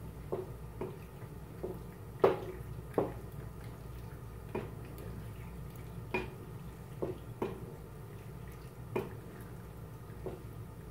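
Wooden spoon stirring penne pasta in tomato sauce in a pot, knocking against the pot now and then: about ten irregular knocks, the loudest a little over two seconds in.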